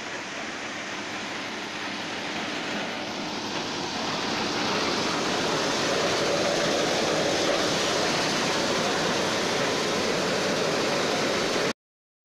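Vardhman crop thresher running while crop is fed into it: a steady rushing machine noise that grows louder about four seconds in and cuts off abruptly near the end.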